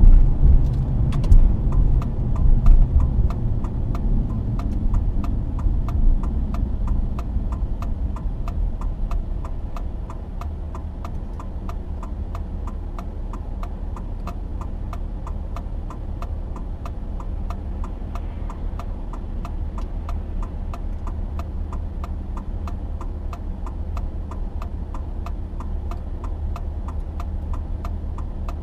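Car interior: road and engine rumble fading as the car slows to a stop over the first ten seconds, then a steady idle, with the even ticking of the turn-signal indicator throughout.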